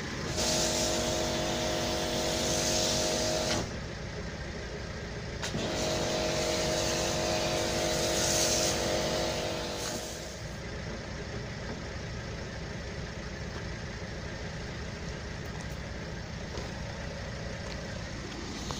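Electric pressure washer running through a snow foam lance in two bursts of about three and four seconds. Each burst is a steady motor hum with the hiss of foam spraying. A steady, lower rumble carries on between and after the bursts.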